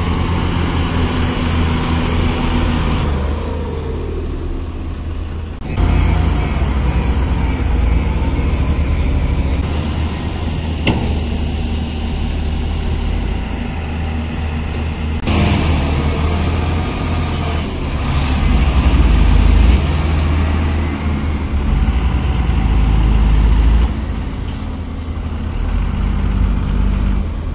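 Diesel engine of a hydraulic excavator working under load, its note rising and falling and changing abruptly a few times.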